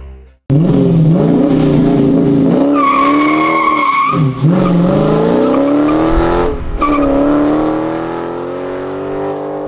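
2018 Dodge Challenger Scat Pack's 392 Hemi V8 accelerating hard away, the engine's pitch climbing through the gears with two brief drops as it shifts up, then easing as the car pulls into the distance.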